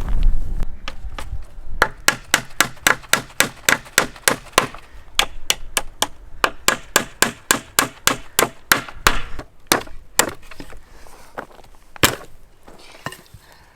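Hand-forged axe chopping wood in a quick run of sharp strikes, about three a second, slowing to a few spaced blows near the end.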